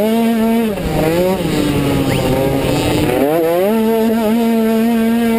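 Automatic cross scooter's small engine racing on a dirt track, heard from the rider's helmet: the revs climb, ease off about a second and a half in, sit lower for a moment, then climb again about three seconds in and hold a steady high pitch as the variator keeps the engine at full revs down the straight.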